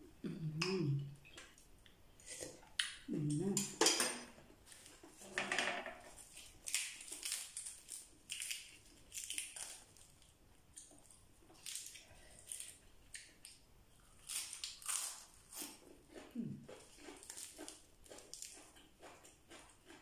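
Close-up eating sounds: a person chewing steamed scallop and crisp lettuce leaves dipped in sauce, with many short wet crunches and clicks. A few brief hums or voiced sounds come in the first few seconds.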